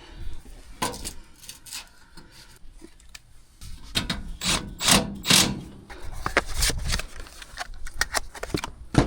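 Handling noise from work on wiring and capacitor terminals inside an HVAC unit's electrical compartment: scattered clicks and taps, with a few louder scraping rasps in the middle.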